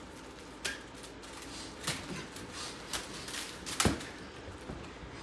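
A handful of short, sharp crackles and clicks over soft rustling: plastic-wrapped cheese cracker packs being handled and crinkled. The loudest, with a dull thump, comes just before four seconds in.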